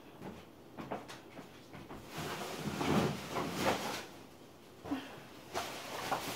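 Faint household handling noises from someone out of the picture: a few soft knocks, and about two seconds of rustling and shuffling starting about two seconds in.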